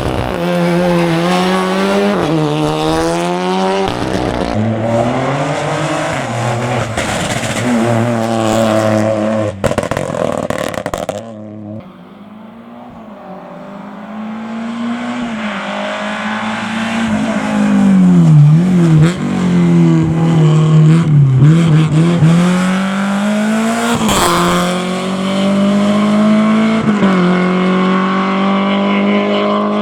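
Rally cars' engines revving hard and rising in pitch through the gears, dropping back between shifts and on braking, with some tyre squeal. Several passes follow one another; in one a car builds up from quiet, about twelve seconds in, to very loud.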